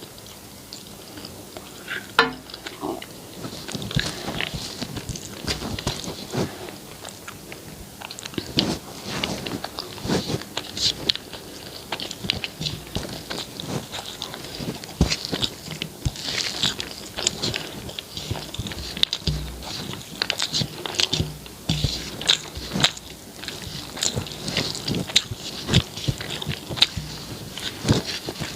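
Close-miked chewing and mouth sounds of a person eating rice, egg curry and roti, with a steady run of short, irregular wet clicks.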